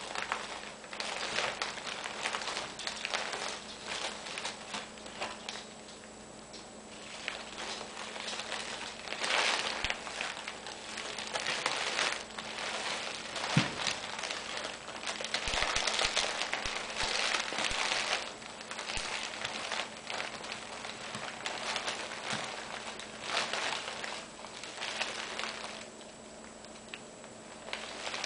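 Plastic tea-bag wrappers crinkling and rustling as a cat rolls and squirms on them in a wicker basket. The crackling comes in irregular spells, with quieter stretches about a quarter of the way in and again near the end.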